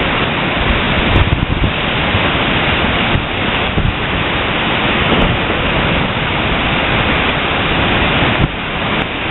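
Glacial meltwater river rushing out of an ice cave at a glacier's terminal face: a loud, steady, even rush of water with no distinct impacts.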